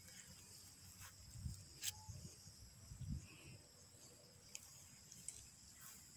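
Faint, steady high-pitched chirring of insects, with a few soft low thumps and one brief click.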